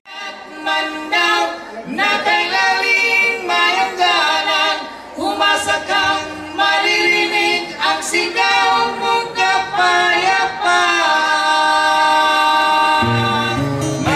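Singing with no accompaniment, a cappella; low instrumental notes come in about a second before the end.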